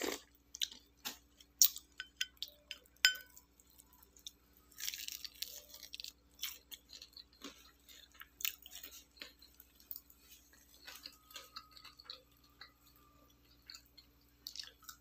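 A person eating at close range: chewing with many scattered small clicks and taps, the loudest a little under two seconds and three seconds in, and a brief hiss about five seconds in.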